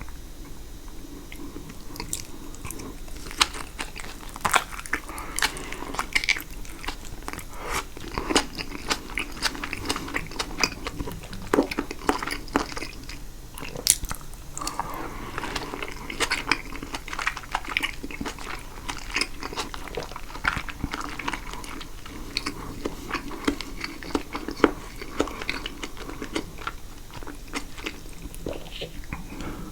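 Close-up chewing of caprese salad (tomato, mozzarella and basil in a thick balsamic vinaigrette): wet, squishy mouth sounds with many sharp irregular clicks and smacks.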